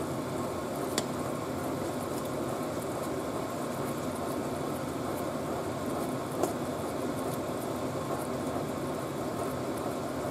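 Glutinous rice simmering in a pot of liquid while being stirred with a spoon, over a steady whooshing background noise. The spoon knocks lightly against the pot twice, about a second in and a little past the middle.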